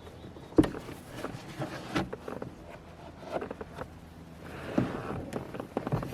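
Scattered knocks and clicks of hands handling equipment, irregular, the sharpest about half a second in.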